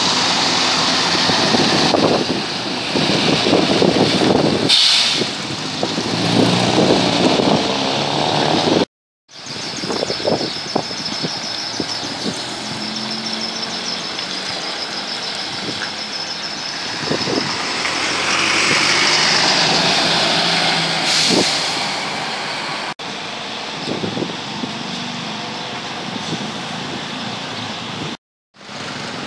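City buses' diesel engines running as the buses pass close, turn and pull away, with tyre noise on wet pavement, in several short takes split by brief drop-outs to silence.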